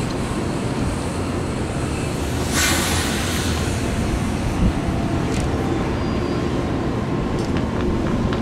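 A diesel-hauled commuter train running on the rails with a steady rumble, and a brief hiss about two and a half seconds in.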